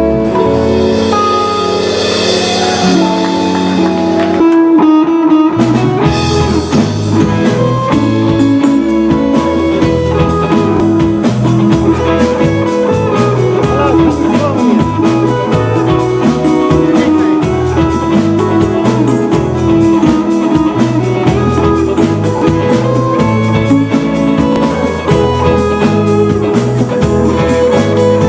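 A band playing an instrumental break: guitar over bass and drum kit. Held chords open it, and a steady beat comes in about five seconds in.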